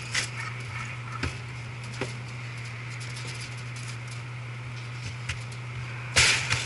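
Steady low hum with scattered light clicks and knocks, and a brief loud rushing hiss about six seconds in.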